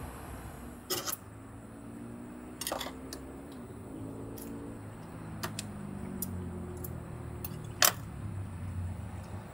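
An eating utensil tapping and scraping against a small frying pan while eating, with sharp clinks about once a second, the loudest about eight seconds in.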